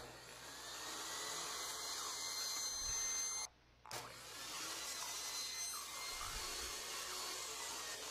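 Benchtop table saw running and ripping thin strips of eastern red cedar, a steady motor and blade noise that cuts out briefly about three and a half seconds in, then carries on.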